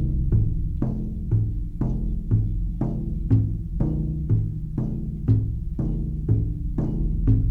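Music: a low-pitched drum beaten in a steady beat about twice a second over a deep, steady drone.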